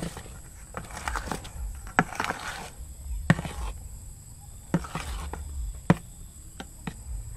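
A spoon folding whipped egg whites into cake batter in a stainless steel bowl: scattered clinks and taps of the spoon against the bowl, with soft wet scraping of the batter in between.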